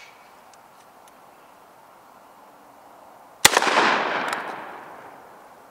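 A single 12-gauge shot from a Molot VEPR-12 semi-automatic shotgun about three and a half seconds in. The report echoes and dies away over about two seconds.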